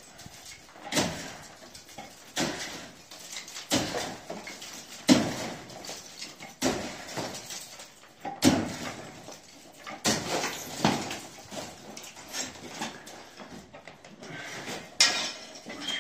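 Repeated blows of a hand demolition tool knocking old plaster off a wall, about a dozen strikes at uneven intervals, each followed by a brief clatter of crumbling plaster and debris.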